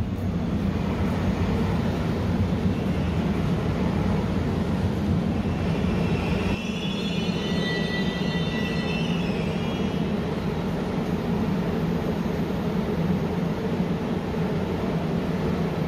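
Korail electric commuter train at a station platform: a steady low rumble, with high wavering squealing tones for a few seconds in the middle.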